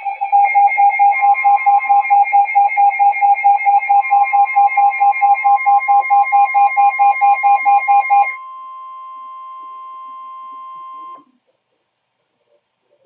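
Weather-radio emergency alert tones: a rapid beeping alarm, about five beeps a second, over a steady single warning tone. The beeping stops about eight seconds in and the steady tone runs on alone until it cuts off about three seconds later. This is the warning alarm tone that comes before a National Weather Service tornado warning is read out.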